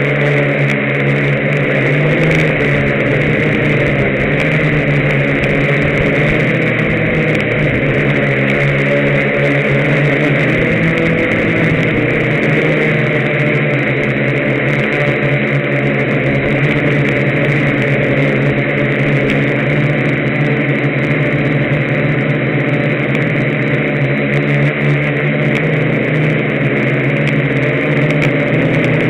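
Y6 hexacopter's electric motors and propellers running in flight, heard from the onboard camera as a steady, loud buzz whose pitch wavers slightly as the motors adjust speed.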